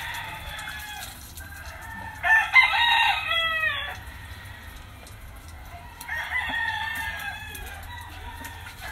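A rooster crowing: one loud crow about two seconds in, lasting under two seconds and dropping in pitch at the end, then a fainter call around six seconds in.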